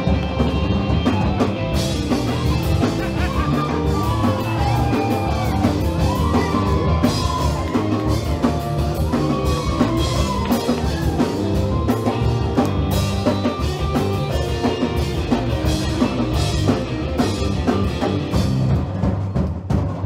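Live rock band playing, drum kit to the fore, with electric guitar and a melodic line weaving over it.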